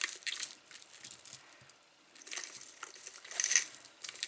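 Handling noise as jewelry is lifted out of the jar: several short clusters of rustling with light metallic clinking.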